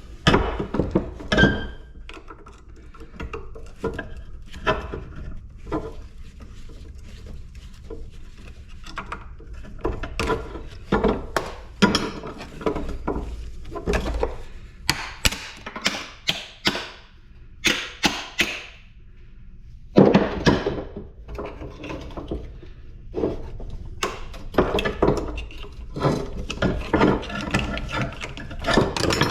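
Irregular knocks, clanks and thuds of scrap metal parts being banged and pulled apart by hand, busier in the second half.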